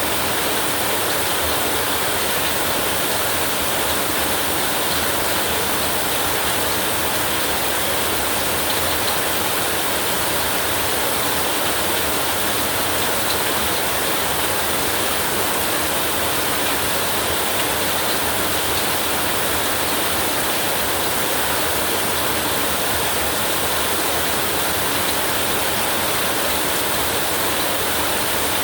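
Torrential rain falling steadily: a dense, even hiss that does not change.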